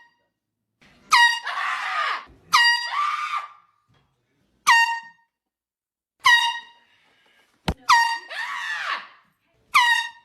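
Air horn blasted in six short bursts, about one every one and a half to two seconds, each a loud, shrill tone that jumps up in pitch as it starts. After several of the blasts a person yells in fright, and there is a sharp click just before the fifth.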